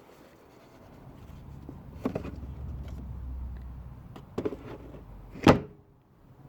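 Old air filter being pulled out of a car's plastic airbox: rustling and handling noise with a few knocks, the loudest a sharp knock near the end.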